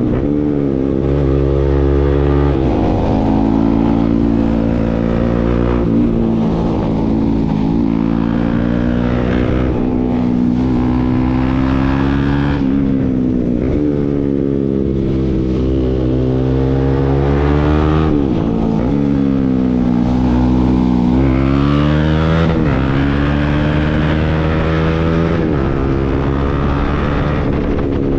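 Motorcycle with an aftermarket Akrapovic exhaust being ridden, the engine revving up and dropping back again and again as it accelerates, shifts and slows.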